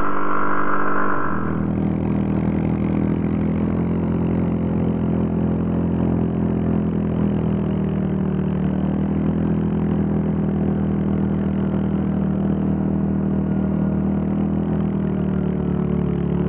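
ATV engine running steadily as the quad rides across snow, an even drone with little change in pitch. About a second in the sound changes abruptly to a deeper, fuller engine note.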